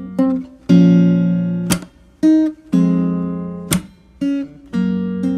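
Background music: acoustic guitar playing chords that ring and fade, with a sharp percussive hit twice, about two seconds apart.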